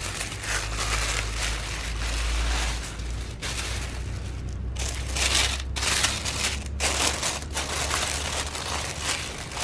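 Tissue paper rustling and crinkling as hands lift and fold back the wrapping inside a gift box. The rustle comes and goes unevenly over a steady low hum.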